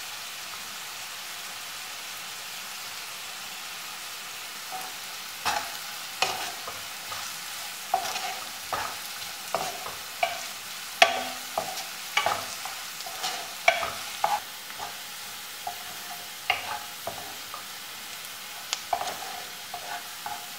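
Chopped onions with green chilli, ginger and garlic sizzling in coconut oil in a non-stick pan. From about five seconds in, a wooden spatula stirs them, knocking and scraping against the pan at irregular intervals.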